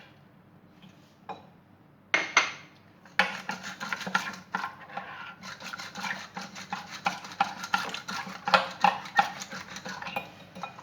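Kitchen utensils clattering: a few single clinks, then from about three seconds in a quick run of repeated knocks and clinks, like a spoon tapping and scraping against a bowl.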